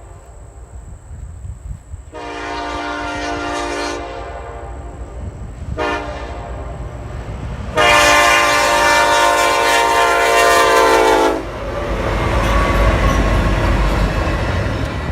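Freight locomotive air horn blowing a long blast, a brief toot, then a long, loud blast, the long-short-long close of a grade-crossing signal. Once the horn stops the train runs past with a heavy rumble and the clatter of wheels on rail.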